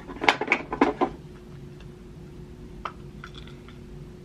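Taps and clicks of makeup products and a brush being handled: a quick cluster of several sharp clicks in the first second, then a few fainter ticks.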